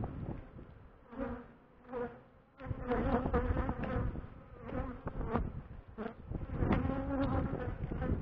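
Honeybees buzzing as they fly close past the microphone in front of their hive. The buzz swells and fades with each pass, several times over, louder from about three seconds in.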